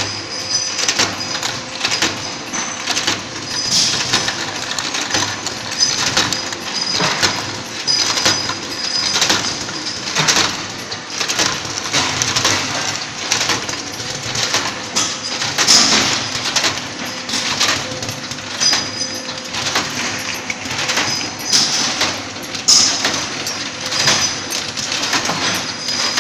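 Flow-wrap packing machine with an automatic feeder running: a steady clatter of metallic clicks and clinks, several a second, as small round metal parts are fed along the chain conveyor, over a faint steady machine hum.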